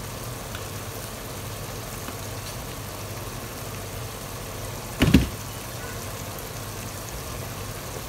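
Steady low mechanical hum, with a single short knock about five seconds in.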